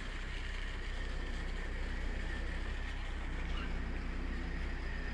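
Steady low mechanical hum and rumble with a faint, steady high whine above it.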